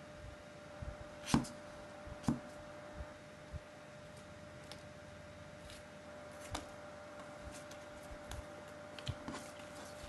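Folded-paper origami toys handled on a wooden tabletop: scattered soft taps and paper crinkles as they are pressed, picked up and set down, the two loudest about one and a half and two and a half seconds in. A faint steady hum sits underneath.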